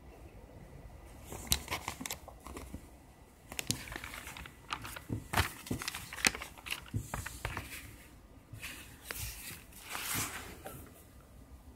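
Pages of an IKEA catalogue being handled and turned: paper rustling and crinkling with many sharp crackles, and a longer swish of a page turn about ten seconds in.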